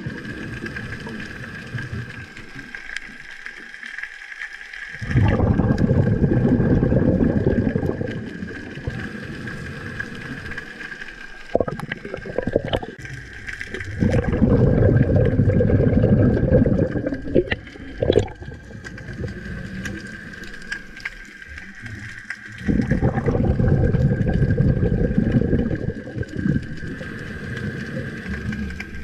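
Underwater water noise picked up by a diver's camera: a loud low rush about every nine seconds, each lasting about three seconds, over a steady high-pitched hum.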